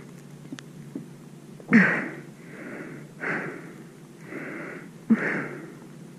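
A person's laboured breathing: three sharp, gasping breaths, each with a short voiced catch and followed by a softer breath, roughly every one and a half seconds. This is the breathing of someone in pain.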